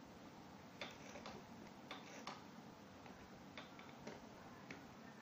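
Faint, irregular clicks and light rustling as fabric and metallic galloon trim are turned and arranged under the presser foot of a domestic sewing machine that is not running.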